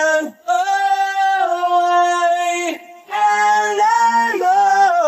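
Isolated rock lead vocal with no instruments: a male voice sings two long, held notes, with a short break just before the middle.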